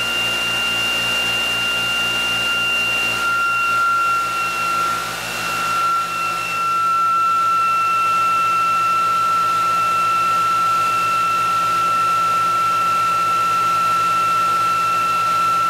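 Bench-top electric motor and generator rig running at speed: a steady machine whine, wavering briefly in pitch and level about four to six seconds in, then holding steady.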